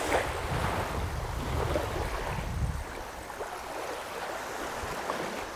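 Small bay waves lapping and washing onto a sandy beach, with a low rumble that eases off about halfway through.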